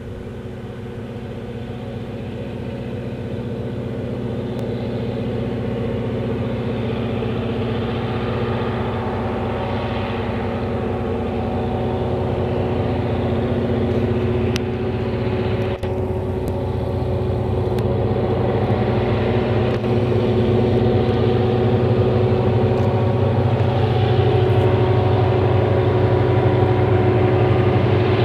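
Two HŽ series 2062 diesel-electric locomotives working hard under load as they haul a heavy freight train uphill. The engines run with a steady drone and grow gradually louder as the train approaches.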